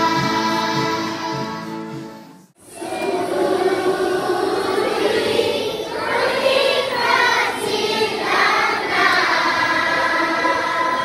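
Song with singing over a steady beat that cuts out sharply about two and a half seconds in. After it, a large group of schoolchildren and adults sing together in Inuktitut.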